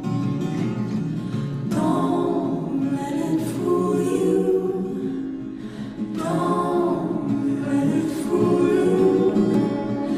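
Indie folk song with layered, choir-like voices singing, and new sung phrases beginning about two seconds in and again about six seconds in.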